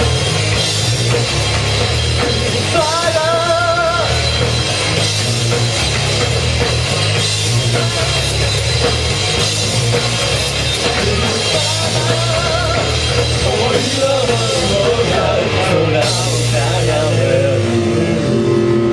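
Rock band playing live: drum kit and guitars with a singer holding wavering notes.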